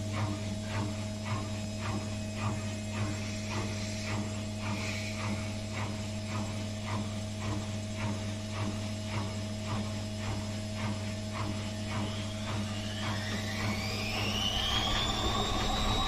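Old Indesit front-loading washing machine running: a steady motor hum with a regular ticking about two or three times a second. About twelve seconds in, a whine rises in pitch and then levels off as the drum speeds up, with the laundry pressed against the door glass.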